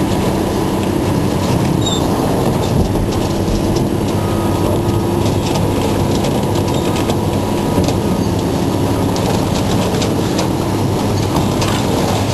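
Heavy scrapyard machinery running loud and steady, a low diesel drone under a constant crackle of metal being crunched and torn as a truck body is broken up for scrap.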